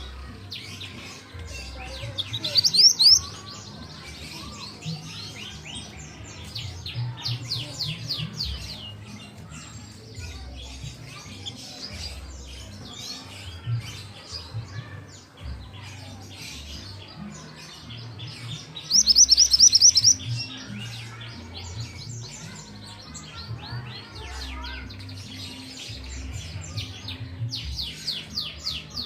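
Young pied bushchat singing in repeated runs of rapid high chirps, with two louder bursts about three seconds and twenty seconds in.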